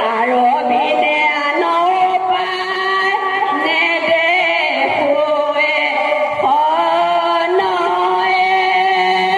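A single high voice chanting a slow, melodic sung line in the style of a bhaona song, holding long notes that waver and bend in pitch, amplified through a microphone.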